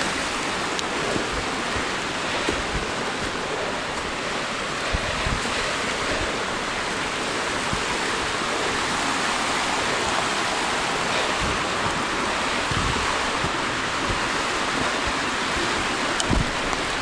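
Small woodland stream cascading down a rocky, mossy slope: a steady rush of water, with a few soft low thumps.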